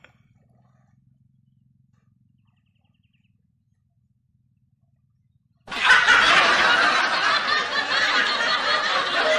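Near silence with a faint low hum, then, about six seconds in, a loud laughter sound effect dubbed over the video cuts in abruptly and keeps going.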